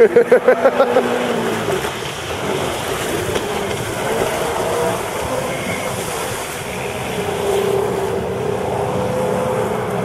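Sea-Doo GTi jet ski engine running at speed, its pitch rising and then dropping as it carves turns across the water, over a steady hiss of spray and wind on the microphone. A rapid run of about eight loud pulses comes in the first second.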